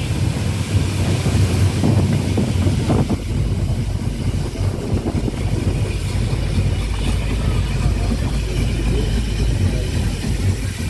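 Small steam tank locomotive hauling an open passenger carriage, heard from the carriage just behind it: a steady running rumble of engine and wheels, with wind on the microphone.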